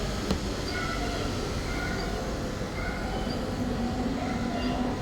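Fairy floss (cotton candy) vending machine running as its spinner head spins sugar into floss: a steady whirring, rumbling noise, with one sharp click about a third of a second in.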